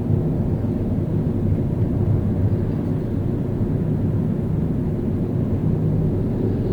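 Car driving in city traffic: a steady low rumble of engine and road noise.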